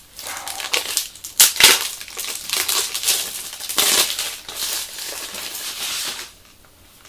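Plastic shrink-wrap crinkling and crackling as it is pulled off a book, with a few sharp, louder crackles about a second and a half in; the crackling stops about a second before the end.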